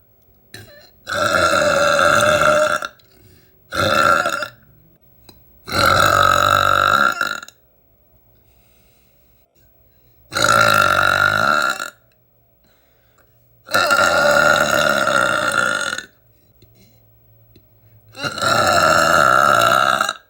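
A young woman burping loudly six times in a row. The burps are drawn-out and pitched, most lasting one and a half to two and a half seconds, with one short one early on, and a few seconds of quiet between them.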